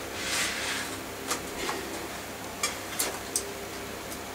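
Handling rustle, then about five sharp, irregularly spaced clicks and metal taps as a mountain bike's rear wheel is lifted into the frame and its chain and sprockets are guided into place.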